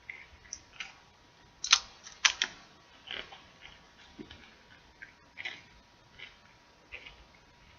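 A bag of chips crackling in short, irregular bursts close to the microphone, with two louder sharp crackles about two seconds in.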